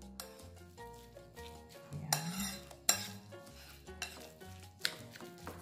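Metal utensil stirring a ground-meat mixture in a ceramic bowl: a scrape against the bowl about two seconds in, then sharp clinks about three and five seconds in. Background music plays underneath.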